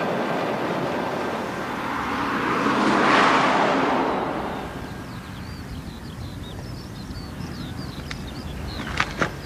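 A road vehicle passing: its noise swells to a peak about three seconds in, then fades away. Faint high chirps follow, with a couple of sharp clicks near the end.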